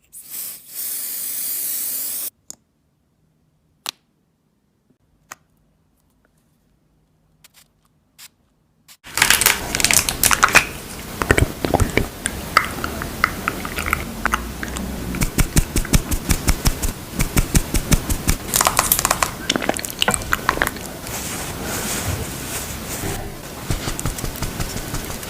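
A spray bottle hisses for about two seconds, then a few separate clicks follow. From about nine seconds in, makeup containers and packaging are handled close up, with dense, continuous tapping, clicking, scratching and crinkling.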